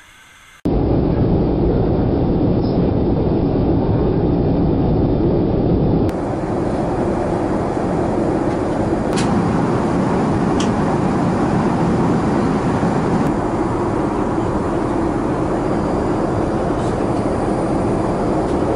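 Airbus A380 cabin noise in flight: a steady, loud rumble of engine and airflow noise that starts abruptly just after the beginning. Two faint clicks come midway.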